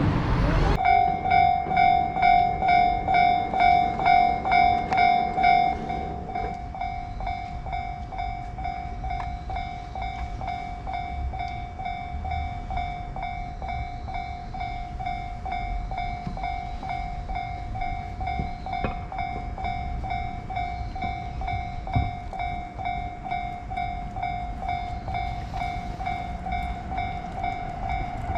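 Japanese railroad crossing's electronic warning bell ringing in a steady rhythm, about two strokes a second. It is louder for the first six seconds, then carries on softer. There is one sharp knock about two-thirds of the way through.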